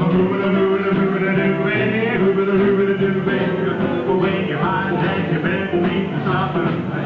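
A live band playing a song.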